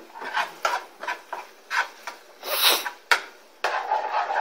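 A cooking spoon scraping and stirring in a pan of ground beef and tomato sauce on the stove, in a run of short strokes about two a second, with a sharp knock near 3 s. A steadier scraping noise follows near the end.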